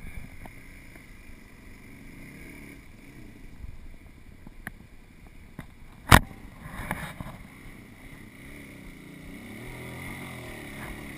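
Dirt bike engine coming up the trail toward the listener, its pitch rising and falling as the throttle is worked and growing louder over the last few seconds. A single sharp knock about six seconds in.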